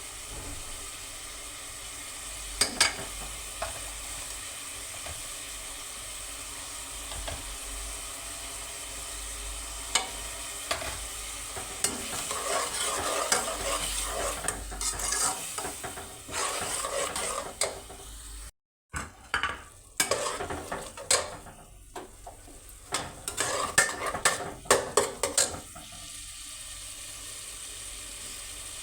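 Potato and cauliflower sizzling as they fry in a pan, with a spatula stirring and scraping against the pan in bursts, and a few sharp knocks of utensil on pan.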